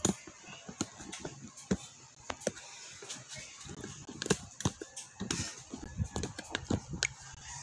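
Scattered clicks, knocks and rubbing of a handheld phone being moved about against clothing, coming at irregular intervals.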